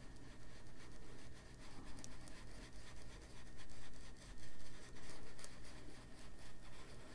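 Faint scratchy rubbing of an ink blending tool worked over a coloring book page in small circular, scrubbing motions, laying down distress ink.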